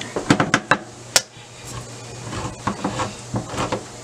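Hand-held manual can opener and small steel can of tomato paste being handled as the opener is clamped onto the rim: several sharp metal clicks and clanks in the first second, then softer ticks.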